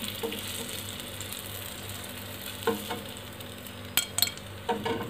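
Chicken satay sizzling steadily on a hot ridged grill pan. A few sharp clicks of metal tongs against the skewers and pan come as the skewers are lifted off, the loudest about four seconds in.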